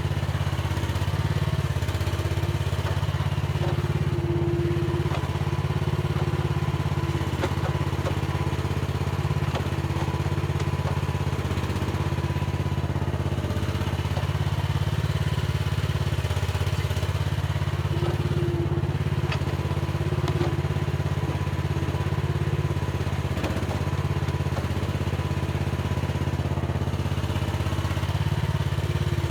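Mini excavator's engine running steadily, with a higher whine that comes and goes every few seconds and a few light knocks.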